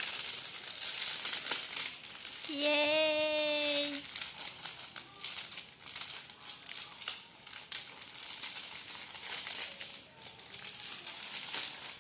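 Packaging crinkling and rustling as it is handled during unboxing, a dense run of small crackles throughout. About two and a half seconds in, a child's voice holds one steady note for over a second.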